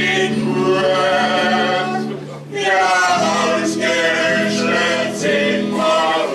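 A quartet of men singing together in parts, holding long notes, with a brief break about two and a half seconds in.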